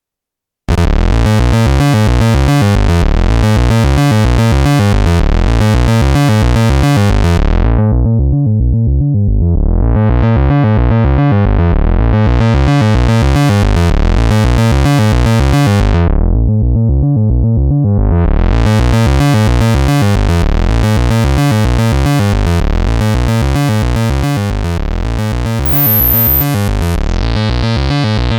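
Eurorack modular synthesizer voice: a Synthesis Technology E350 Morphing Terrarium oscillator, frequency-modulated by a sine wave, played through a voltage-controlled filter whose cutoff an LFO sweeps. It plays a repeating rhythmic note pattern that starts a little under a second in. The filter slowly closes and reopens twice, so the tone turns dull and then bright again.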